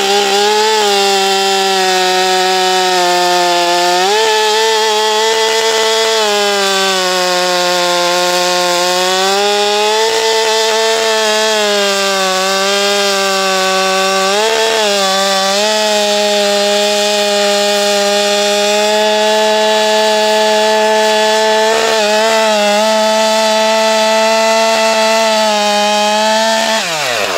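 Stihl 462 two-stroke chainsaw with a skip-tooth chain running near full throttle while cutting wood, its pitch dipping briefly under load several times and picking back up. Near the end the pitch falls away as the throttle is let off.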